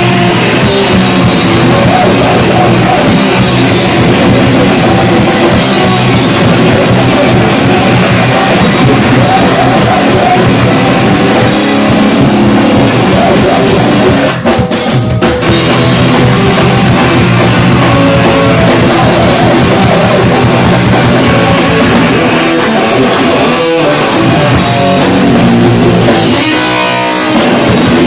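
Rock band playing live and loud: electric guitar, bass and drum kit, with a brief break about fourteen seconds in.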